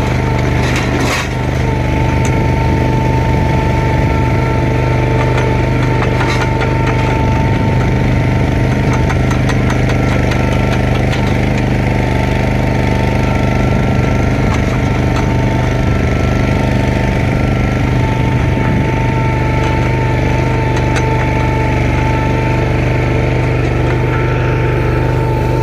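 Vehicle engine running steadily at constant speed, with a low hum and a steady whine over it.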